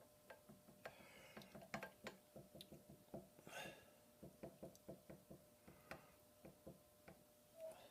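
Faint, irregular clicks and light knocks from hand-cranking a milling machine's table into position, two to four a second with pauses, over a faint steady hum.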